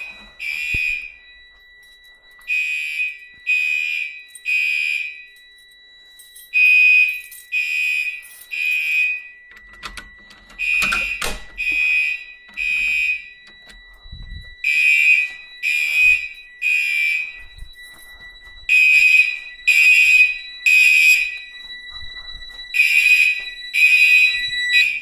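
Fire alarm horns sounding the temporal-three evacuation pattern, set off by a pulled manual pull station: three short blasts, then a pause, repeating about every four seconds. Underneath, the fire alarm control panel's piezo buzzer gives one steady high tone without a break.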